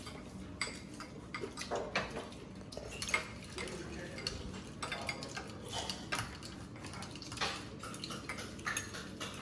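Spoons clinking and scraping against glass cups while eating dessert: many small, irregular clinks.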